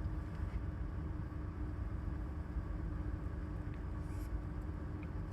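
Car engine idling: a steady low rumble with a faint hum.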